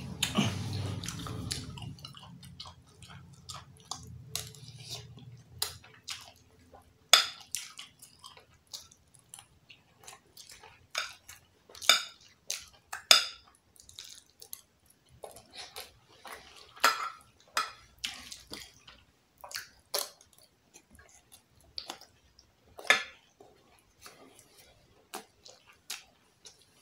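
Metal spoon clinking and scraping against a glass dish of rice: a run of irregular sharp clicks, a few much louder than the rest, with chewing and mouth sounds between them.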